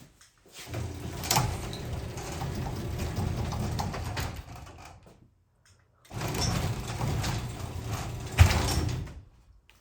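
Craftsman 3/4-horsepower garage door opener running the sectional door in two runs of a few seconds each, with a steady motor hum and rattle. A sharp clunk comes near the end of the second run.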